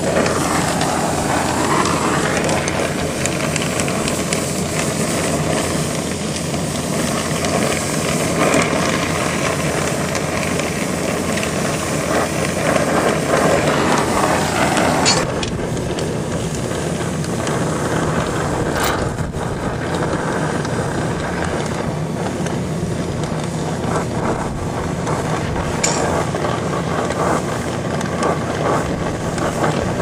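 Brazing torch flame running steadily on a copper joint as it is heated, with a few light clicks.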